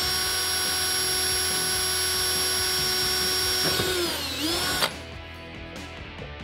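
Cordless drill running steadily as it drills out the centre of a plastic push rivet in a wheel-well liner. After nearly four seconds its whine dips in pitch as the bit bites, comes back up, then cuts off suddenly; background music underneath.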